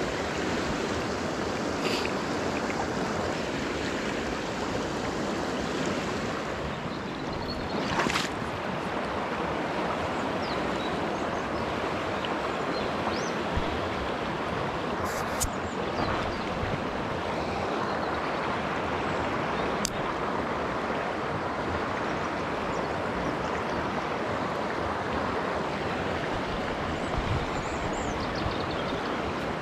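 Shallow river water running steadily over a stony bed, a continuous rushing babble, with a few brief knocks and clicks, the clearest about eight seconds in.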